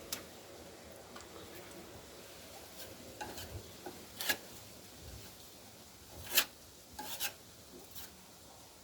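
Faint scraping of a tool working a thick homemade wood filler made of wood glue and sawdust, with a few short sharp taps, the loudest a little past the middle.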